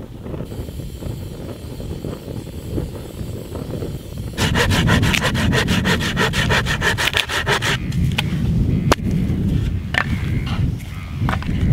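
Hand saw cutting through wood in quick, even strokes, about seven or eight a second, starting about four seconds in and stopping a few seconds later. Scattered single knocks of wood follow.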